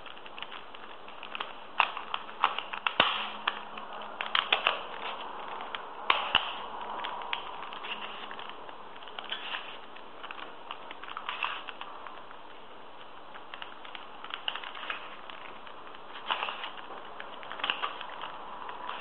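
3x3 Rubik's Cube being turned by hand: its plastic layers click and clack in short bursts of quick turns, with brief pauses between.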